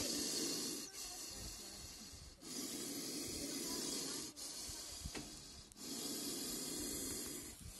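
Indian cobra hissing with its hood spread, a defensive threat: three long, breathy hisses of a couple of seconds each, with short pauses between.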